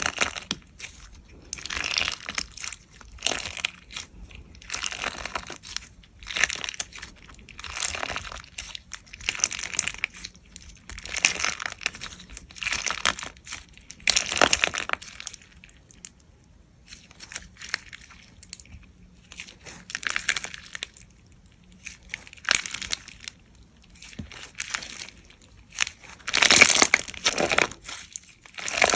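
Slime being squeezed and pressed by hand, giving short crackling, crunching bursts about every second or two.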